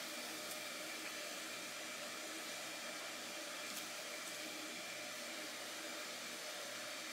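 Steady room-tone hiss with a faint high steady tone and a few faint ticks.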